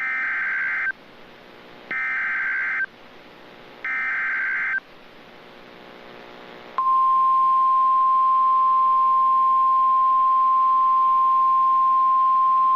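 Emergency Alert System SAME header: three warbling bursts of digital data tones, each about a second long and two seconds apart. About seven seconds in, the steady single-pitch warning alarm tone (the 1050 Hz Weather Radio attention signal) starts and holds without a break. Together they announce an incoming National Weather Service severe thunderstorm warning.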